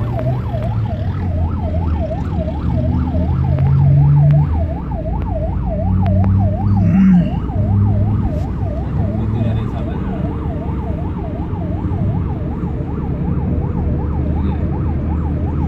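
Ambulance siren wailing in a fast, even rise and fall about three times a second, heard from inside a car driving alongside it, with low engine and road rumble underneath.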